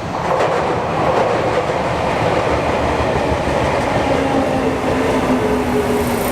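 Sotetsu Line electric train passing close by, its wheels clattering on the rails with a loud rumble. From about four seconds in, a humming tone rises over the noise and slides slightly down in pitch.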